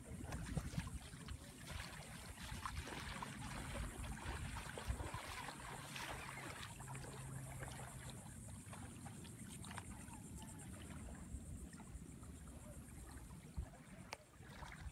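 Small waves lapping steadily at the water's edge, with wind rumbling on the microphone.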